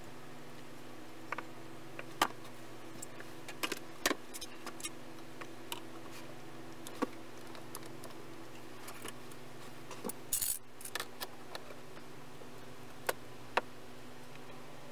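Scattered light clicks, taps and clinks of hand tools and wood being handled on a workbench, with one short scraping stroke about ten seconds in, over a steady low hum.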